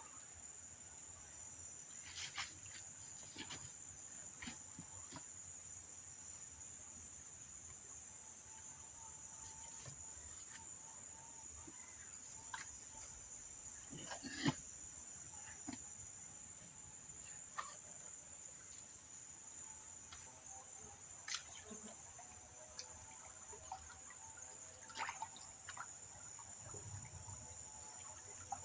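Insects buzzing in a high, steady chorus. For the first half a call swells and cuts off sharply about every two seconds, eight or nine times over. After that it settles into a steady, slightly louder drone, with a few faint clicks.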